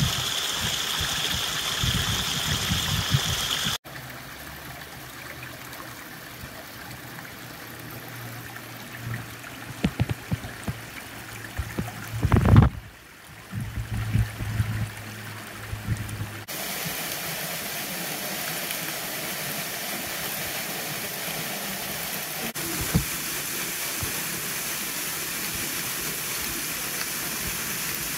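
Running water: a small stream cascade splashing over fallen leaves at first, then after a quieter stretch with a low steady hum and a few knocks, the steady rush of a tall, narrow waterfall from about halfway on.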